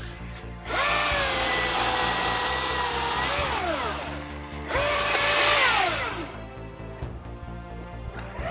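Cordless electric power tool motor spun up twice: the first time it is held for about two and a half seconds, the second time for a shorter burst. Each run rises quickly in pitch, holds, then winds down with a falling whine when released. Background music plays underneath.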